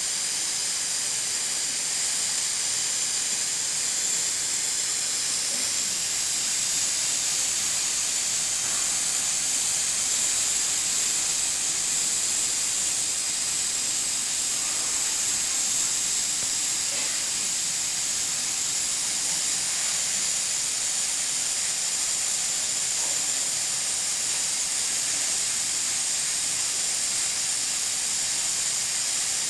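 Pressure cooker hissing steadily as steam escapes past the weighted valve on its lid: a continuous high hiss, cooking under full pressure.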